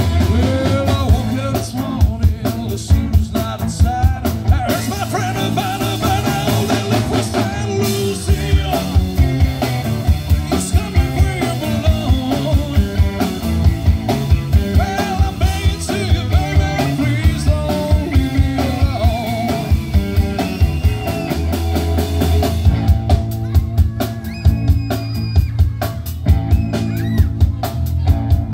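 Live rock band jamming: electric guitars over a drum kit keeping a steady beat.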